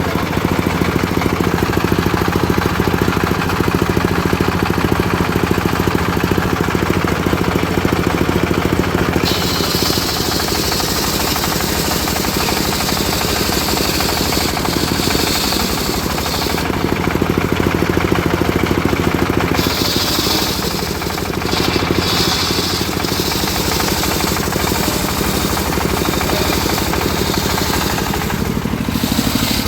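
Engine of a homemade circular-saw rig running steadily under load. From about nine seconds in, a high hiss of the blade ripping through teak comes and goes, with a short break partway through.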